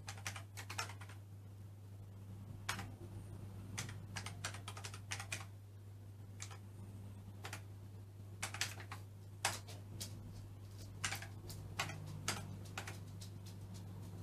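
Keys being typed on a ZX Spectrum+ 128 keyboard: irregular sharp clicks, single presses and short quick runs, over a steady low hum.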